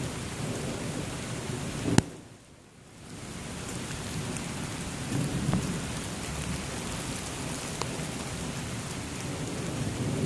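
Steady rain falling on forest foliage in a thunderstorm, with low rumbles of thunder around the middle. A sharp click about two seconds in, after which the sound drops away for about a second.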